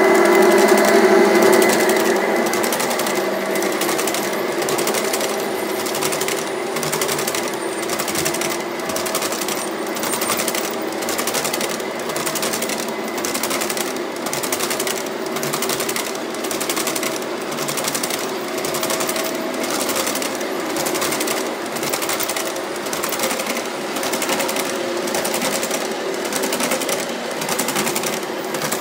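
Model train running past on floor-laid track. The Rock Island diesel locomotives' motors hum loudest in the first couple of seconds. Then a long string of covered hopper cars rolls by, their wheels clicking over the rail joints in a steady rhythm.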